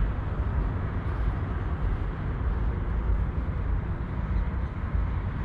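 Wind buffeting the microphone outdoors: a steady, uneven low rumble with a light hiss above it.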